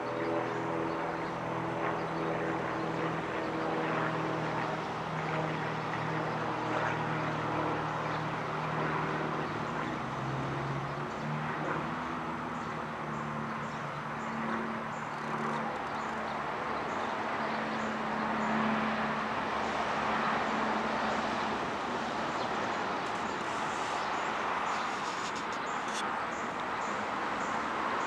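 Two-bladed Pitts S-2 Special aerobatic biplane droning overhead, its piston engine and propeller note falling slowly in pitch and fading away over the first twenty seconds. A steady background rush sits under it.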